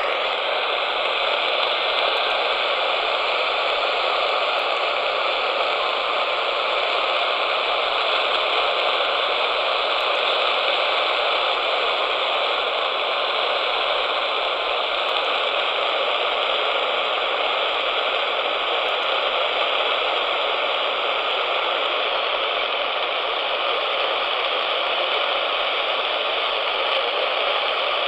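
Steady static hiss from an AM radio tuned to a weak 1620 AM signal, with the station barely coming through the noise.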